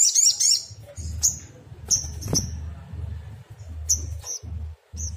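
Sogon (sogok ontong), a small nectar-feeding songbird, calling. A fast, high trill breaks off about half a second in, then comes a string of short, sharp, high chirps spaced apart. A low rumble runs underneath.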